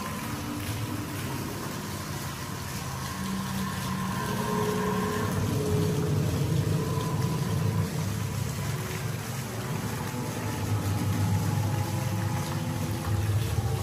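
Fountain water splashing steadily into a pond, under a low rumble that grows gradually louder, with a few faint held tones.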